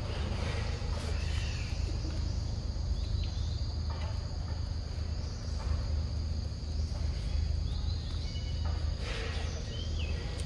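Steady high-pitched insect chorus of crickets or cicadas, over a continuous low rumble. A short chirp comes near the end.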